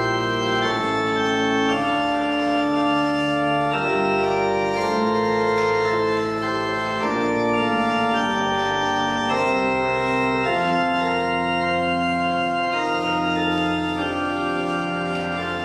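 Church pipe organ playing a slow prelude in held chords, the harmony changing about once a second.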